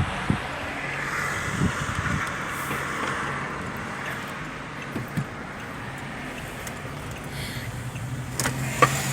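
A car passing on the street, its tyre and engine noise swelling over the first few seconds, above a steady low engine hum. A few sharp clicks near the end.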